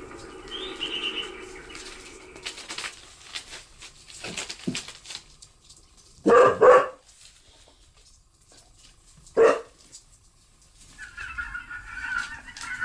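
Dog barking from a sound-effect recording: two barks close together about six seconds in and a third about three seconds later. Near the end a goose starts honking.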